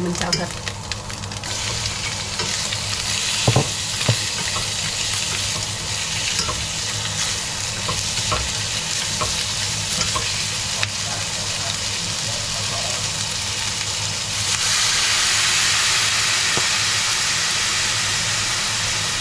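Meat and aromatics sizzling in a hot stainless steel frying pan while being stir-fried with chopsticks, with a couple of sharp clinks of utensils against the pan around three to four seconds in. About fourteen seconds in the sizzle swells to a louder, steady hiss as broth is ladled into the hot pan.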